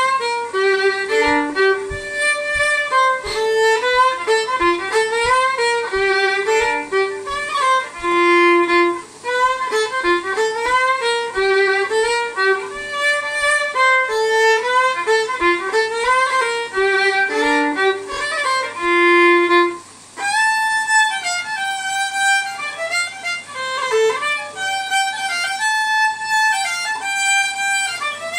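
Solo fiddle playing a lively fiddle tune in quick bowed notes. For the first twenty seconds a soft low thump keeps time about every two-thirds of a second; about twenty seconds in the playing breaks off briefly and picks up again without the thump.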